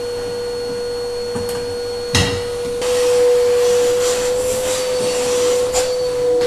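Canister vacuum cleaner running steadily with a high whine, its wand drawing air at a metal floor grille. There is a single knock about two seconds in, and the rush of air grows louder from about three seconds in.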